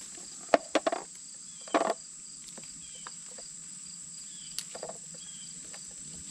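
Crabapples being plucked from their branches and dropped into a plastic freezer container: a handful of sharp clicks and brief rustles of leaves, over a steady high insect drone.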